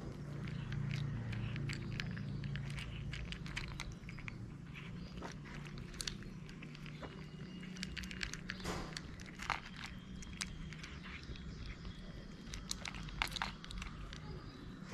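Two cats chewing dry kibble: a steady, irregular stream of crisp crunches as they eat from their bowls.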